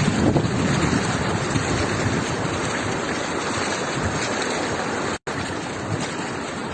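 Steady rushing noise of wind and floodwater, with wind buffeting the microphone. The sound cuts out for an instant about five seconds in.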